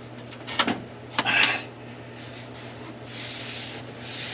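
Two sharp knocks and a short scrape, then a soft rustling, as things are shifted around in a car's trunk, over a steady low hum.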